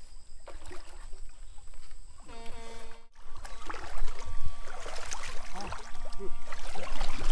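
Shallow stream water sloshing and splashing as people wade through it, louder from about four seconds in. A steady humming tone runs under it from a little after two seconds to near the end.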